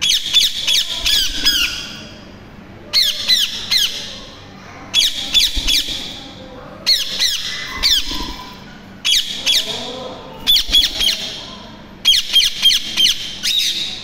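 Indian ringneck parakeets giving loud, harsh screeching calls. The calls come in short bursts of three to five quick, falling notes, about seven bursts roughly every two seconds.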